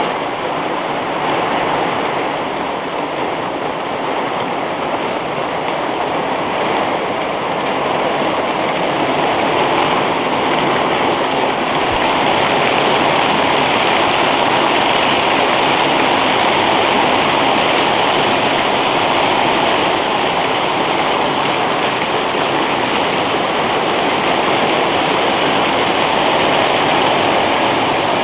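Hail falling on a lean-to roof, heard from inside: a dense, steady hiss of countless impacts that grows a little louder about ten seconds in.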